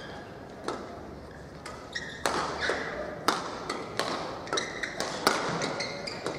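Badminton rackets hitting a shuttlecock in a fast doubles rally, a quick series of sharp smacks, with short squeaks of shoes on the court floor.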